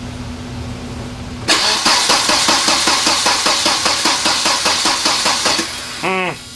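A 1993 Volvo 940 Turbo's 2.3-litre four-cylinder engine being cranked by its starter for about four seconds, a rhythmic churn of about five beats a second that stops without the engine catching: a no-start after a fuel pump and filter replacement, with the new fuel filter still empty of fuel. A steady hum is heard before and after the cranking.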